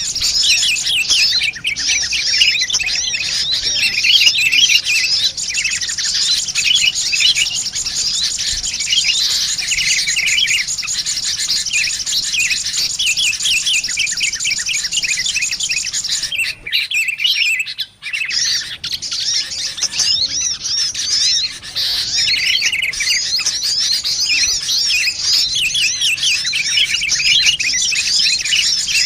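A dense, busy chatter of rapid high chirps from many small birds: a bird-trapping lure recording of sunbirds mixed with agitated, noisy sooty-headed bulbuls. It breaks off briefly about seventeen seconds in.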